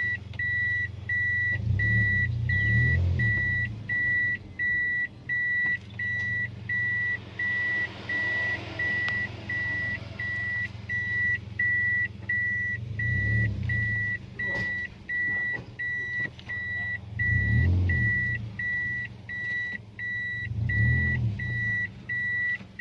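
A car's in-cabin warning beeper sounding a steady high beep about twice a second, over the low hum of a Toyota Yaris running, which swells four times.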